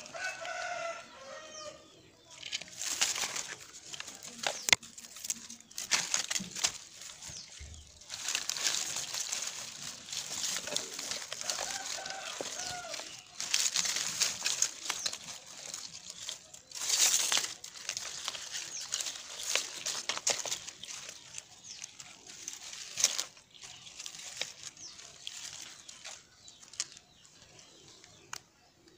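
Rustling of a bag and dry leaves being pushed and handled among rocks, in repeated bursts. A short pitched animal call sounds in the background near the start and again about twelve seconds in.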